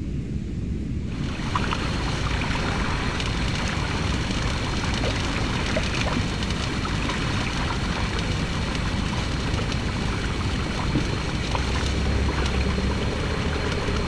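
Low wind rumble, then about a second in the steady wash of wind-driven lake waves lapping on the shore joins it, with small scattered splashes.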